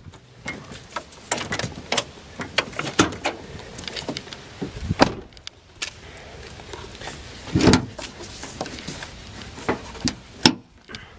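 Clicks, knocks and clunks of a Ford E350 van's hood being unlatched and raised, with a heavier thump about two-thirds of the way through.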